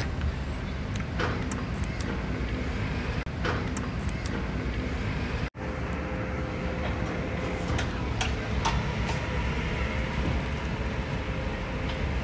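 Heavy construction machinery's diesel engine running steadily with a low rumble, with scattered knocks and clanks over it. The sound drops out briefly twice, about three and five and a half seconds in.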